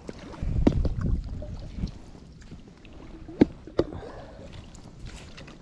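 Paddling an inflatable kayak: paddle strokes swishing and splashing in calm water, with a few sharp clicks and knocks, the loudest about three and a half seconds in.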